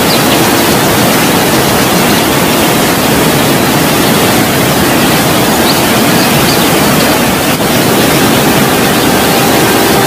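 Waterfall: a steady, loud rush of falling water, with a few faint, short high chirps over it.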